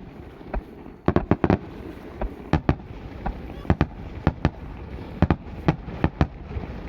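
Aerial fireworks shells bursting in an irregular string of sharp bangs, with a quick cluster about a second in.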